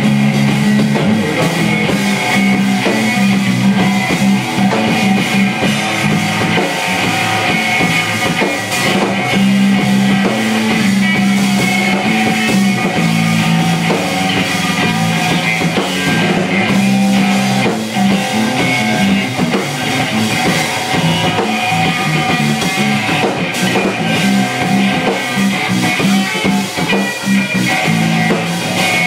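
Live rock band playing loud and without a break: electric bass, electric guitar and drum kit.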